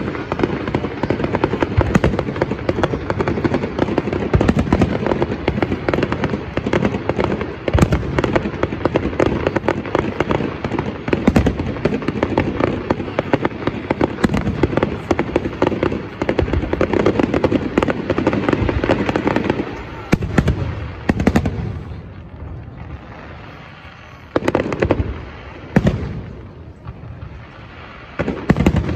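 Fireworks display: about twenty seconds of dense, continuous crackling and bangs, then it thins to a handful of separate sharp bangs with quieter gaps between them.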